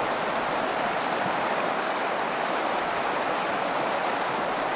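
Fast, shallow river rapids rushing over rocks in a steady, even rush of water.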